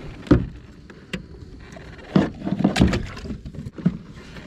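Irregular knocks and clunks of gear being handled against a plastic kayak hull and console, with a loud knock just after the start and a cluster of clunks about two to three seconds in.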